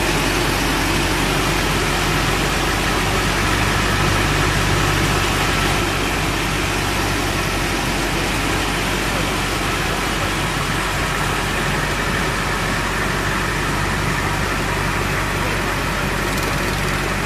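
A wooden passenger boat's engine running steadily under way, heard from on board as a constant low drone that drops slightly in level about six seconds in.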